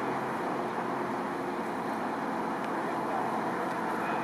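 Steady highway traffic noise: tyres and engines of vehicles going past.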